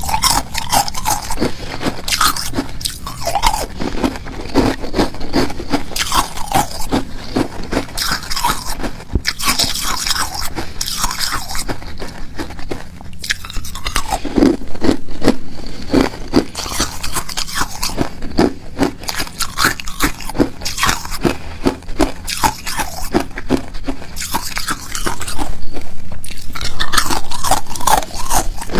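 Hard ice cubes being bitten and chewed, close-miked: a dense, irregular run of loud crisp crunches, loudest a few seconds before the end.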